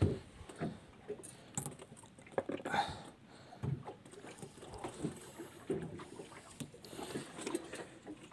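Scattered knocks and thumps at uneven intervals from handling gear and catch aboard a small fishing boat, the first knock the loudest.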